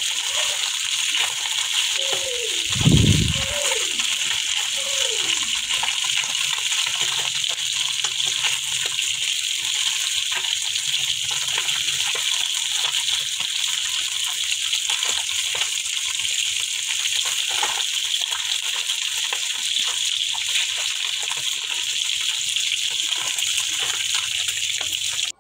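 Small tengra fish sizzling as they fry in oil in a frying pan: a steady hiss with continual crackles. Between about two and five seconds in there are a few short falling pitched sounds and a low thump.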